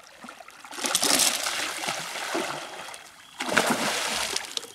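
Hooked barramundi thrashing at the water's surface beside the boat: two bouts of heavy splashing, the first beginning about a second in and the second, the louder burst, about three and a half seconds in.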